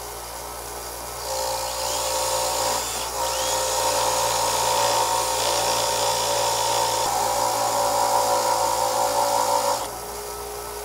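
Cordless drill spinning an engine valve against a bench grinder's brass wire wheel: a steady whine with a scratchy brushing hiss that starts about a second in, dips briefly near three seconds and stops shortly before the end, over the grinder's steady running hum. It is carbon being scrubbed off the valve's stem and face.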